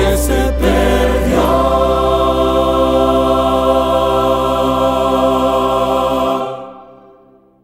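Mixed choir holding a long final chord over instrumental accompaniment with a low sustained bass note, fading out in the last second or so.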